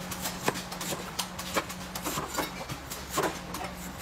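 Cleaver chopping and shaving the husk of a young green coconut on a wooden chopping block: a run of sharp knocks, about two a second and unevenly spaced.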